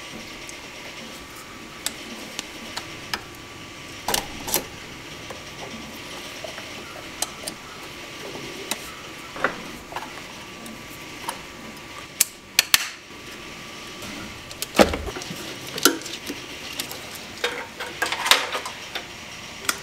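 A 3D printer running steadily with a faint whine, under scattered sharp metallic clinks and knocks from hand tools working on the engine as the carburettor and manifolds come off; the clinks bunch up near the end.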